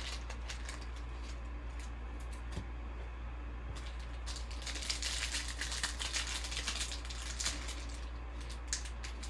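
Trading cards being handled and flipped against one another: a run of small clicks and sliding rustles that thickens for a few seconds about halfway through, over a steady low electrical hum.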